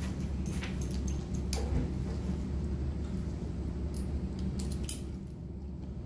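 Metal fittings and buckles of a dog mobility harness jingling, with scattered light clicks as the straps are fastened around the dog's chest, over a steady low room hum.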